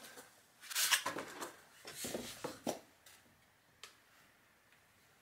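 Handling noise from a plastic-bodied gaming laptop being turned over and set down on a cardboard box: a brief rustle, a run of light scrapes and knocks, then a single sharp click.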